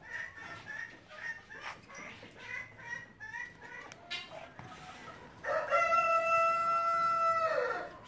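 A rooster crowing once, a long, level call lasting about two seconds that starts past halfway through. Before it there is a scatter of short, pitched calls and voices from the hall.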